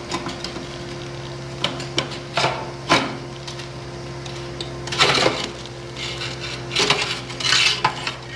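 Cement-caked metal mixing-paddle assembly being twisted and pulled out of a continuous mixer's mix chamber: a series of short scrapes and knocks of metal against the chamber, with a longer scrape about five seconds in and a cluster of scrapes near the end, over a steady low hum.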